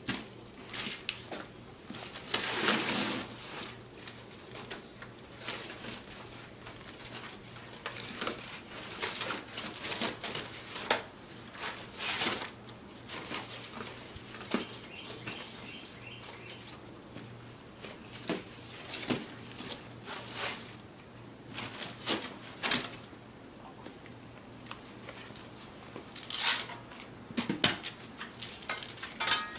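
Duct-taped cardboard box being ripped apart and crushed by hand and foot: irregular crunching, tearing and flapping of cardboard, loudest about three seconds in and again near the end.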